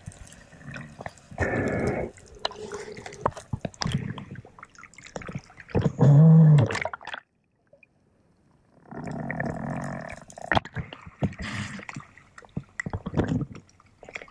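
Underwater sound through a camera's waterproof housing: water moving and bubbling, with scattered clicks and knocks. A loud low hum that rises and falls for about a second in the middle, then a short silence.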